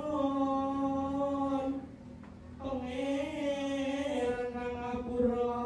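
A man's voice singing a slow, drawn-out chant: long held notes with slow wavering ornaments, breaking off about two seconds in, then picking up again with another long phrase.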